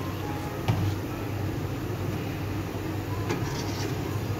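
Steady low hum, with two light metal clicks of a ladle against the steel cooking pot, one about a second in and one near the end.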